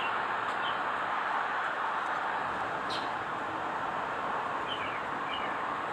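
Steady outdoor background hiss, with a few faint short high chirps and one sharp tick about three seconds in.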